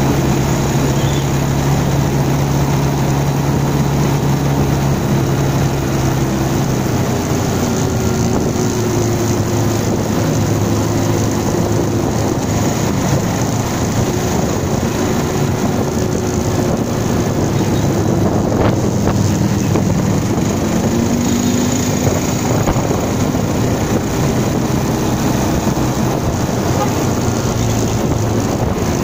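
Wind rushing over the microphone of a camera on a Bajaj Pulsar 220 motorcycle riding at about 45–55 km/h, with the single-cylinder engine's steady drone underneath. The engine note drops about seven seconds in.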